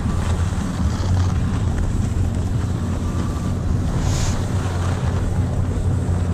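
Wind buffeting a moving skier's action-camera microphone in a steady low rumble, with skis hissing over packed snow and a brief louder hiss about four seconds in.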